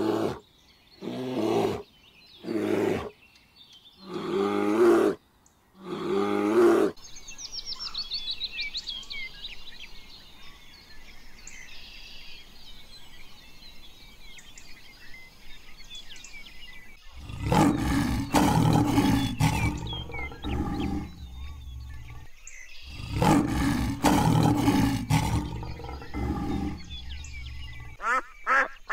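A black bear calling: five loud roaring calls about a second and a half apart, the later ones longer, stopping about seven seconds in. Faint high bird chirps follow. Two long stretches of loud, rough sound come after that from a source that can't be named, and rapid short honking calls begin near the end.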